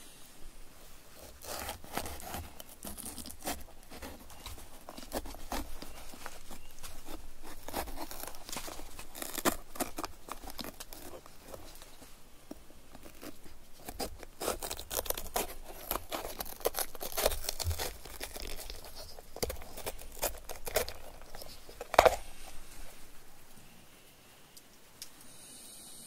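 A knife cutting around the stem of a red bell pepper: crisp crunching and tearing of the pepper's firm flesh. A sharp snap about 22 seconds in as the stem and seed core are pulled free.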